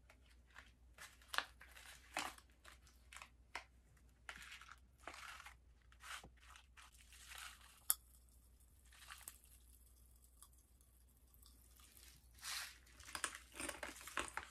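Grape Pop Rocks popping candy crackling in the mouth: faint, irregular pops and snaps. They thin out just past the middle and pick up again near the end.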